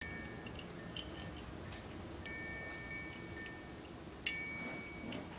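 Hanging glass crystal prisms tinkling as they touch one another, each touch leaving a clear high ring that lasts a second or two; the strongest strikes come about two and four seconds in, with lighter clinks between.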